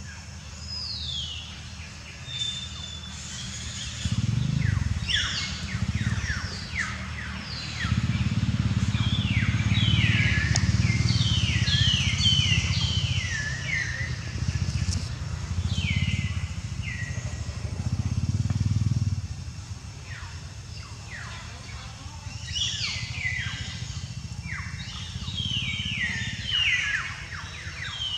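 Birds chirping in runs of short, quick falling notes, over a loud low rumble that swells and fades several times through the middle.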